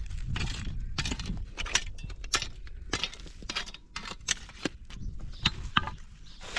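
Hand digging tools (a pick, shovel and rake) striking and scraping dry, stony soil in irregular chops about twice a second, with stones clinking.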